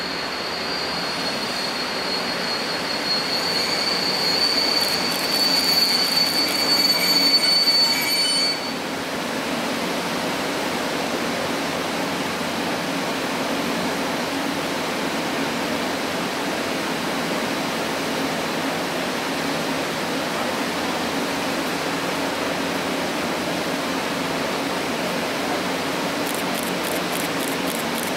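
EP09 electric locomotive and its passenger coaches braking to a halt: a high-pitched brake squeal grows louder and cuts off suddenly about nine seconds in as the train stops. After that the standing train gives a steady low hum.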